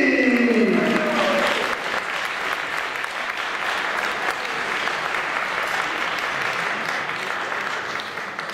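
A man's drawn-out announcing voice, falling in pitch, ends about a second in and gives way to steady audience applause.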